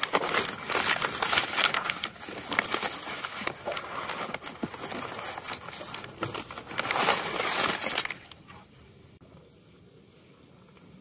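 Packaging crinkling and rustling, with tearing crackles, as a new alternator is unpacked; it stops about eight seconds in.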